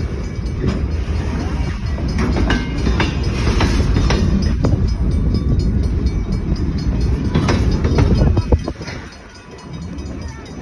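Freight train of potash hopper cars rolling past: a loud steady rumble with the clatter of wheels over rail joints, falling away sharply about three quarters of the way through.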